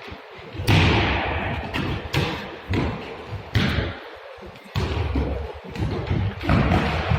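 About six hard ball impacts, a second or so apart, each ringing out in a large, echoing sports hall.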